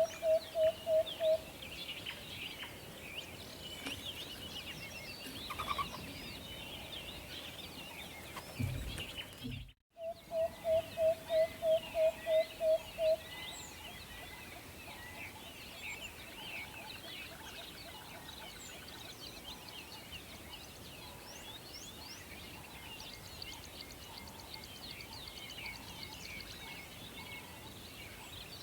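An owl giving a quick run of about eight short, evenly spaced hoots on one pitch, twice: once near the start and again about ten seconds in. Under it runs a steady night chorus of high chirps. The sound drops out for an instant just before the second run.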